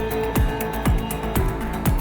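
Background electronic music with a steady beat of deep kick drums, about two a second, and ticking hi-hats.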